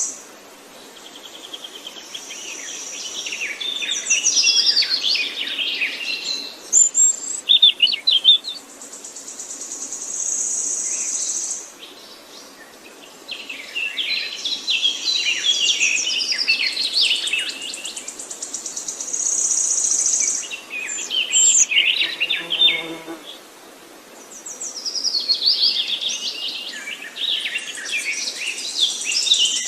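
Several songbirds chirping and singing in overlapping bursts of quick rising and falling notes, with a high, even buzzing trill that comes back every several seconds. A short low rattle sounds about three-quarters of the way through.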